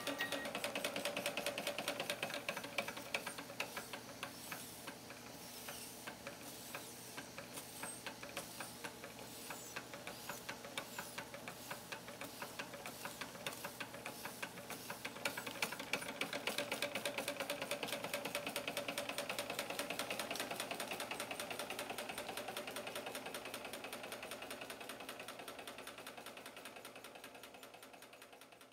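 Antique Märklin Verbund-Lok toy steam engine running under load, driving a toy carousel by a belt. Its small cylinders and valve gear make a rapid, even ticking clatter that fades out at the very end.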